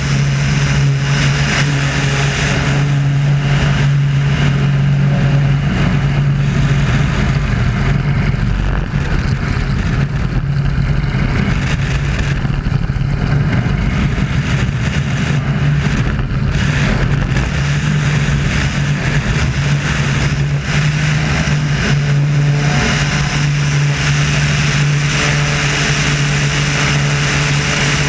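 Wolf Pitts Pro aerobatic biplane's engine and propeller running hard, heard through heavy wind rush on a camera mounted outside the aircraft. The steady drone wavers and blurs through the middle as the plane manoeuvres, and settles again near the end.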